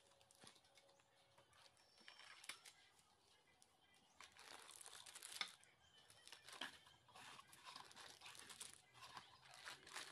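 Faint crinkling and rustling of plastic packaging, bubble wrap and zip-lock bags of parts, as they are handled. It is mostly quiet at first and becomes more continuous about four seconds in.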